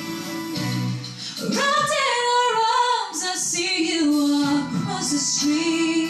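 A young woman singing solo into a microphone over an instrumental backing; after a low opening phrase her voice climbs, about a second and a half in, to higher held notes.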